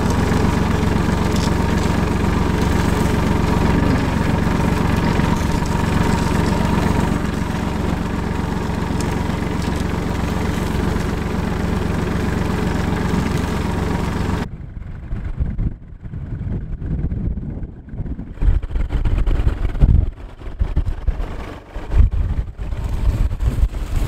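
Iseki TK538 compact tractor's diesel engine running steadily under load while pulling a plough through grassland. About fourteen seconds in the sound cuts to gusts of wind buffeting the microphone.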